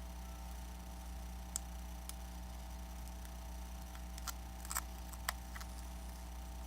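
A few small, sharp clicks and taps of plastic pry tools working between an iPad's glass display and its frame, over a steady low electrical hum.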